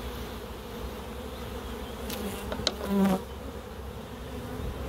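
Honeybees buzzing steadily around an opened hive and a frame crowded with bees. A brief, louder sound stands out about three seconds in.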